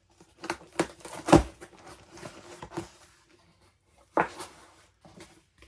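Parcel being unpacked by hand: a string of knocks and rustles as balloon packages are handled, the loudest thump about a second in and another sharp knock near four seconds.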